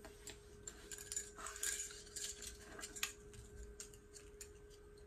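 Small metal binder rings clinking and clicking as they are handled, light scattered clicks with one sharper click about three seconds in.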